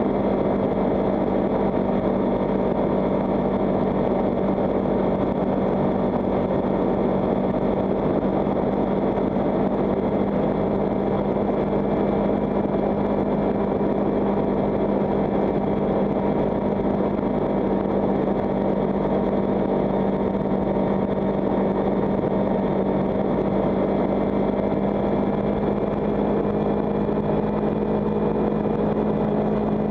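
Kawasaki Ninja 300's parallel-twin engine running steadily at cruising speed, its pitch holding level, with wind noise on the microphone.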